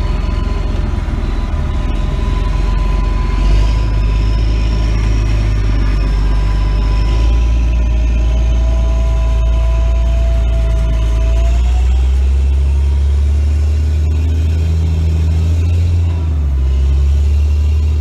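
John Deere self-propelled forage harvester running while chopping corn, heard from inside its cab: a steady deep drone with a constant whine, and fainter higher whines that slowly drift in pitch.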